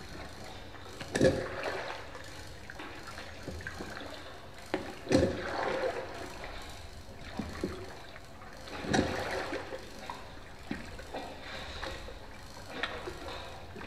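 Canal water lapping and splashing around a hand-rowed boat, with an oar stroke about every four seconds, four strokes in all.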